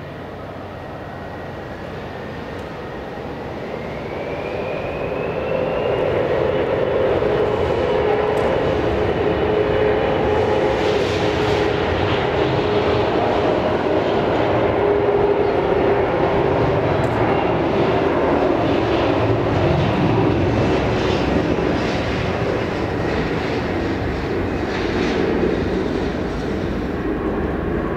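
Bombardier CRJ900's two rear-mounted GE CF34 turbofan engines spooling up to takeoff power: a whine rises in pitch about four seconds in as the sound swells, then the jet engines run loud and steady through the takeoff roll and liftoff, easing slightly near the end.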